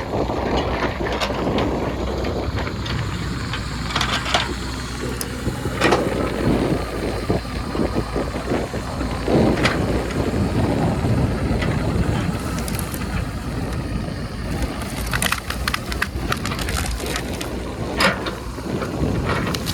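A heavy diesel earthmoving machine running steadily, with scattered knocks and crunching as sand and earth are pushed and dumped.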